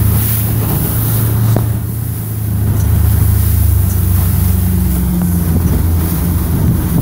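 Mercury 115 four-stroke outboard running steadily at about 3,000 rpm under way, smooth with no misfire after being reset.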